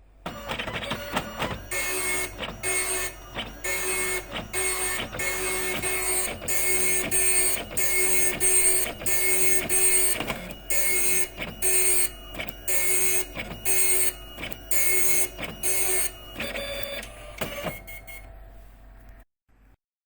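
Epson dot matrix printer printing: the print head runs in short, evenly repeated bursts, line after line. Near the end it gives way to a quieter, different whirring.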